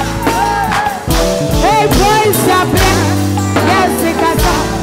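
Live Ghanaian gospel praise music: a woman's singing voice sliding between notes over a band, with steady bass notes and drum hits.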